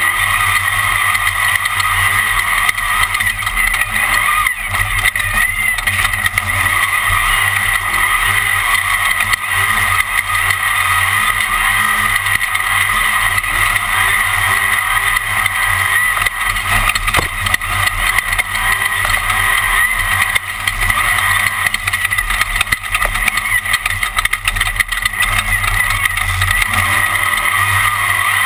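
Class 1 off-road race car heard from onboard at racing speed: engine and terrain noise in a steady, loud din, with scattered knocks.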